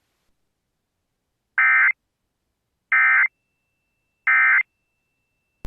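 Emergency Alert System end-of-message data signal: three short, identical bursts of screechy digital tones about a second and a half apart, marking the close of the alert. A brief click follows near the end.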